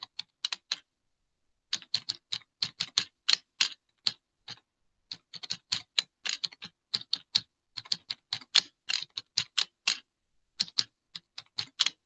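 Computer keyboard typing: an irregular run of quick key clicks, pausing briefly about a second in and again near the end, as a line of text is typed out.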